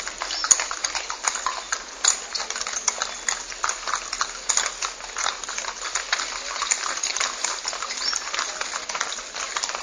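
Many horses walking on a stone-paved street, their hooves making a dense, irregular clip-clop of overlapping hoofbeats.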